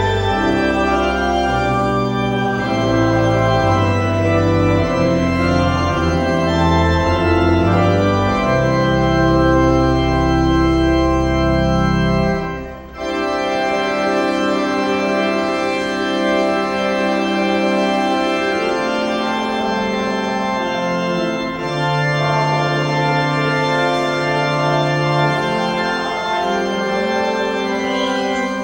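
Church organ playing sustained chords with a deep pedal bass; the music dips briefly about 13 s in, and the bass drops out as lighter chords carry on.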